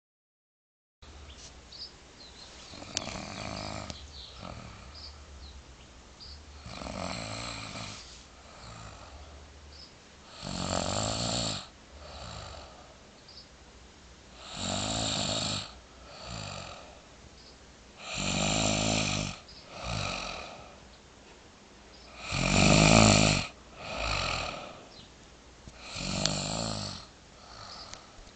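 A woman snoring in her sleep. Each breath brings a longer, louder snore followed by a shorter, softer one, repeating about every four seconds and growing louder, with the loudest near the end.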